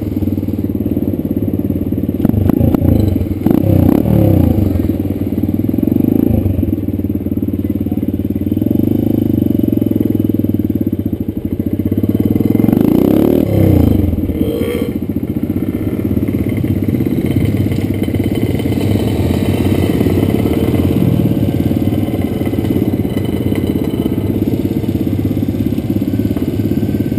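Dirt bike engine running under way, heard from on the bike. Its pitch rises and falls as it is revved up and down, most clearly a few seconds in and again about halfway through.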